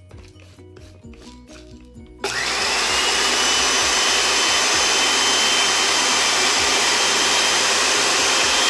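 CHULUX bullet blender's motor switching on about two seconds in and running steadily at full speed, with a high whine that rises briefly as it spins up and then holds.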